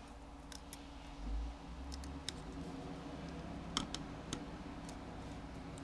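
Small precision screwdriver ticking and clicking against tiny screws and the metal shield plate inside an iPhone 4 as screws are driven back in, in scattered sharp clicks. A dull low bump comes a little over a second in, over a steady low hum.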